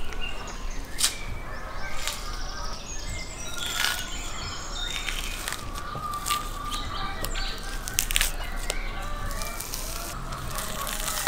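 Hands peeling the fat off a raw kidney, with short sharp crackles of tearing scattered through, over birds chirping.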